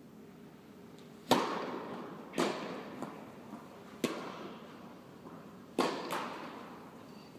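A tennis rally: five sharp pops of a tennis ball being struck by rackets and bouncing on the court, the first and loudest a little over a second in. Each pop rings on in the echo of a large indoor tennis hall.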